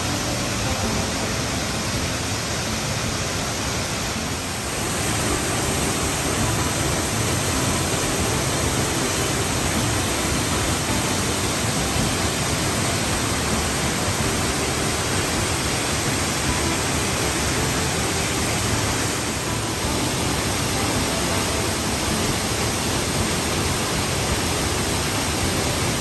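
Steady rushing of a tall waterfall plunging into its pool, getting a little louder about four and a half seconds in.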